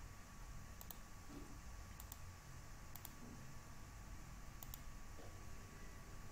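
A few faint computer mouse clicks, about four spread over several seconds, some as quick double clicks of press and release, over a low steady background hiss.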